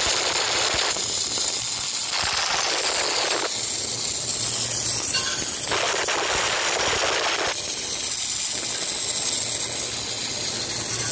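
Robotic MIG/MAG welding arc from a Kemppi Kemparc welder on a Fanuc robot, hissing steadily, with louder crackling spatter that comes in spells of a second or so, three times.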